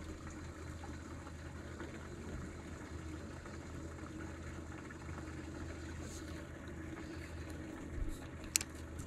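A low steady hum and faint water lapping against a fishing boat's hull. Near the end there is a soft thump and then a sharp click as the spinning reel is handled.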